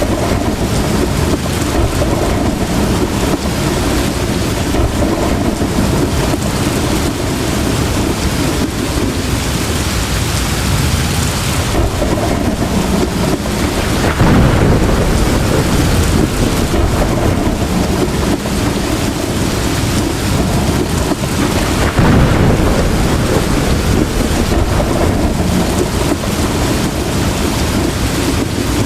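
Heavy rain pouring steadily with rolling thunder underneath. Louder swells of thunder come about halfway through and again about three quarters of the way in.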